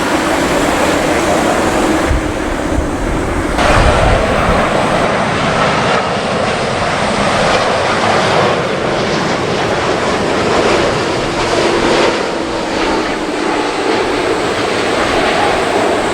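Jet airliner landing, its engines running as a steady loud rush, with strong gusty wind buffeting the microphone, heaviest a few seconds in.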